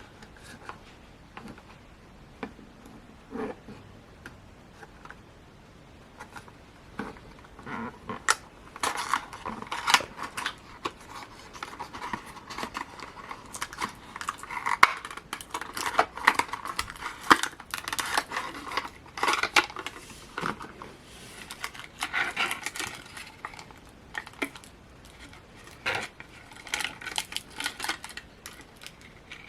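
Handling of a Funko Pocket Pop! keychain's packaging: a few light taps and clicks, then, about eight seconds in, a dense run of crinkling and clicking of plastic and card with occasional sharper clicks.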